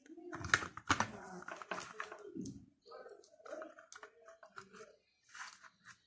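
A series of light clicks and knocks as a battery charger's circuit board is handled and set down into its plastic case.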